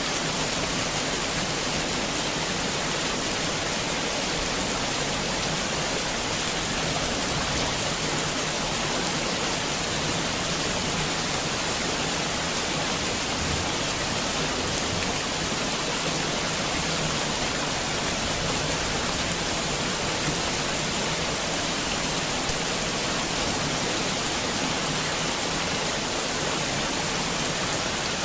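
Heavy rain falling steadily, an even wash of noise with no thunder or breaks.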